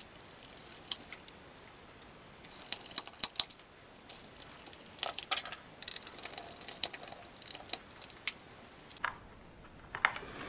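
Irregular light clicks and rattles of small plastic and metal parts being handled and fitted on an RC car's front suspension and steering, coming more often after the first couple of seconds.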